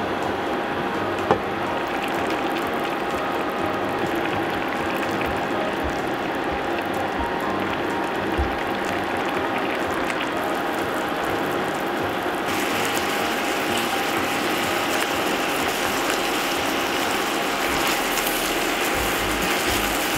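Chicken and daikon simmering in a soy and sugar sauce in a cast-iron skillet: a dense, steady bubbling crackle. About twelve seconds in it turns brighter and more hissing, with the sauce bubbling uncovered and thickening toward a glaze.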